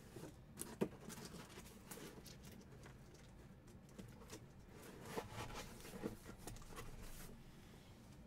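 Faint scattered taps, clicks and rustles of hockey trading card packs and cardboard boxes being handled and moved on a tabletop.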